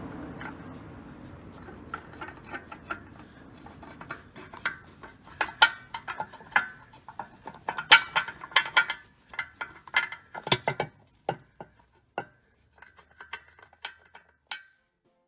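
Irregular metallic clinks and taps, like hand tools and steel parts knocking together, thickest in the middle and thinning out near the end.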